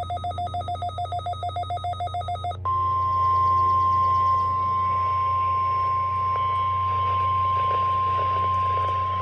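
Rapid pulsing electronic beeps, about ten a second, over a low hum. They cut off about two and a half seconds in and give way to the NOAA Weather Radio warning alarm tone, a single steady 1050 Hz pitch that is held unbroken: the weekly test activation of the public warning alarm.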